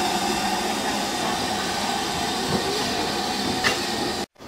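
Steam locomotive standing with steam hissing steadily, a constant tone running through the hiss; it cuts off suddenly near the end.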